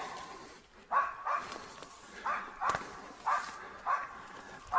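Hunting laika barking repeatedly, a run of sharp barks about one every half second starting about a second in, typical of a laika baying at game it has found.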